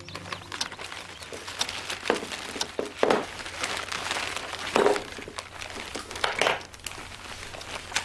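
Irregular rustling and knocking handling noises, a series of short scrapes and taps of which the strongest fall about three, five and six seconds in.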